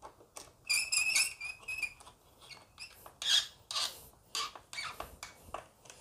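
Short clicks and scrapes with a brief high squeak about a second in, from hands tightening an electrical wire into a fuse carrier and a meter's screw terminals.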